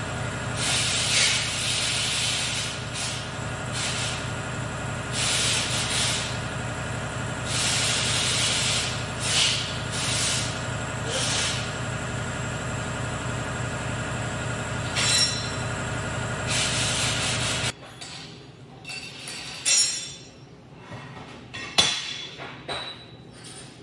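Irregular scraping strokes of hand work on a metal weldment hanging from a crane chain, roughly one every second or two, over a steady machine hum. The hum cuts off suddenly near the end, leaving a few knocks and clinks.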